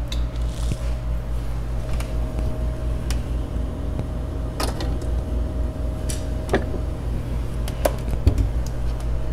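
Steady low hum of an ice maker running, with scattered light clicks and knocks as things are handled under the bar.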